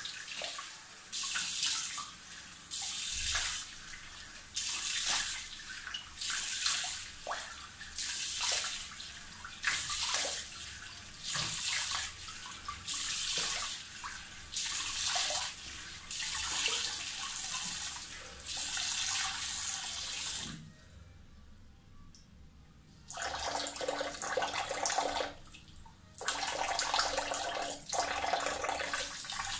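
Tap water running into a bathroom sink while handfuls are splashed onto the face, a splash about every two seconds, wetting a beard to soften it before a shave. About two-thirds of the way through the water stops for a couple of seconds, then runs steadily again.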